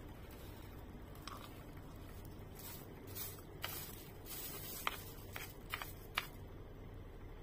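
Eating sounds: a plastic spoon scraping and clicking against a plastic food tray while scooping rice, with a handful of sharp clicks in the second half, over a steady low hum.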